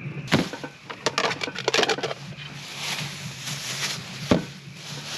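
Thin plastic grocery bags crinkling and rustling as vegetables are handled on a plastic storage bin. A sharp knock comes near the start and another about four seconds in.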